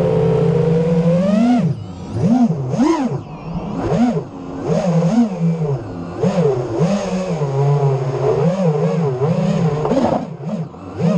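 FPV racing quadcopter's motors and propellers whining under steady throttle, then from about two seconds in revving up and down in repeated swoops. Near the end they become quick short blips.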